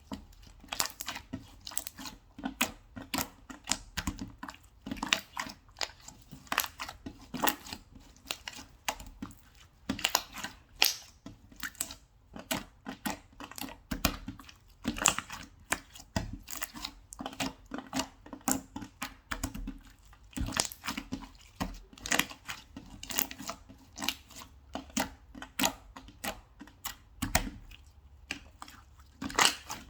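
Slime being squished and pressed by hand, giving an irregular stream of sharp crackles, pops and clicks, several a second.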